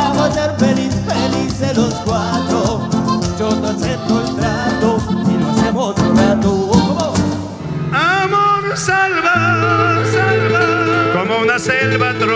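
Live Latin band music with accordion, electric guitar and a singer. About eight seconds in the music changes to a different passage with long held notes over a steady bass.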